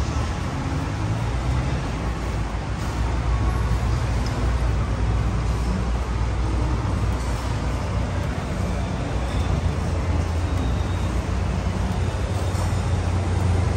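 Steady ambient rumble, deep and even, with a few faint ticks and no clear single source.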